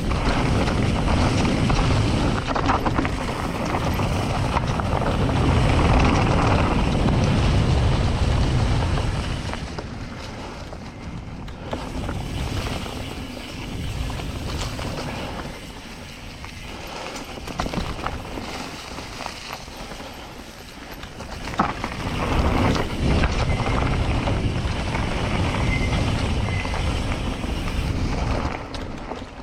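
Wind buffeting the microphone during a mountain bike ride, over the rumble of tyres on a dirt trail, with scattered knocks from bumps. It swells and eases as the speed changes, louder near the start and again in the last third.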